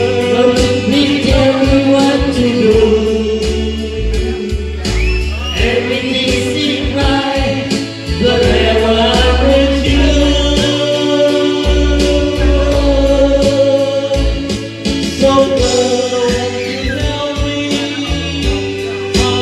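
A man singing through a handheld microphone over a karaoke backing track with a steady bass beat.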